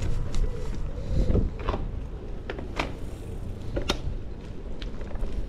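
Low wind rumble on the microphone of a camera carried on a moving bicycle, with scattered sharp clicks and rattles.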